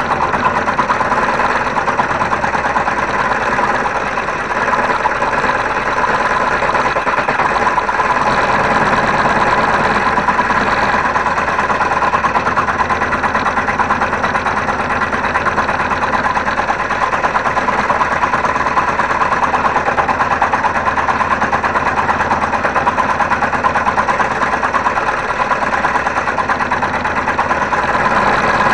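Homemade scroll saw running steadily, its blade stroking up and down very rapidly as it cuts through a wooden board.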